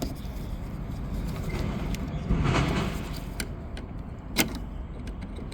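Handling noise from a pickup truck's exterior door handle assembly being pressed at its tabs and pulled through the door: a scraping rustle a couple of seconds in, then two sharp clicks.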